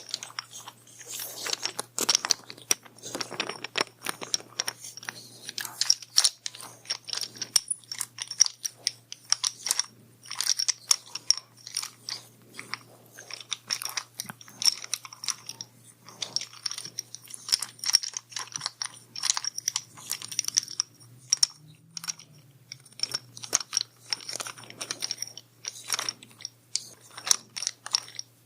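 Close-up crackly scratching and rubbing right on a microphone, irregular and continuous: an ASMR massage being acted out on the microphone.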